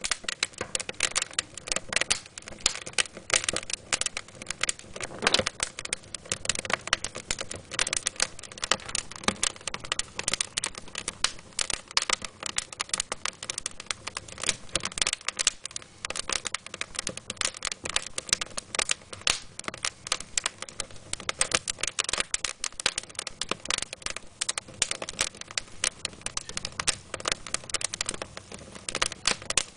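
Wood fire crackling in a fireplace: a dense, continuous run of sharp snaps and pops from the burning split wood, with a louder pop about five seconds in.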